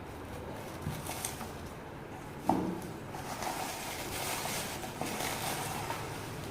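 Packaging handled by hand: small knocks, one sharp knock about two and a half seconds in, then steady rustling.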